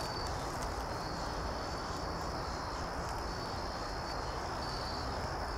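Insects trilling steadily in the woods: a continuous high-pitched tone that swells briefly a few times.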